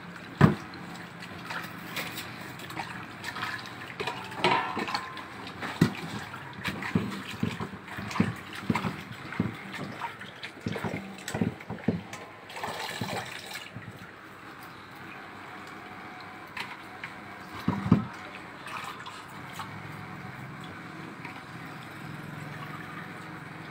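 Water splashing and sloshing as hands swish and lift thin-sliced potatoes in a stainless steel bowl of water to rinse them, with irregular knocks against the bowl. It is busiest in the first half and quieter after, with one knock later on.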